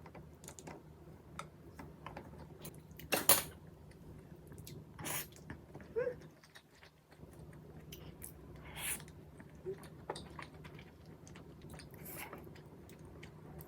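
Close-miked chewing and mouth sounds of eating rice with soy-sauce-marinated crab, with small wet clicks and about four louder, short smacking bursts.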